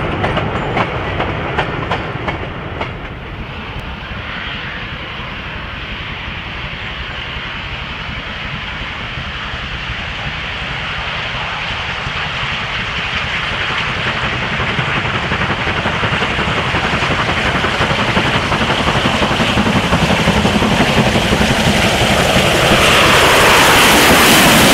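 Wheels of a goods train clicking over rail joints as it rolls away, then a Stanier 8F 2-8-0 steam locomotive approaching with a goods train, its rumble growing steadily louder until it passes close near the end.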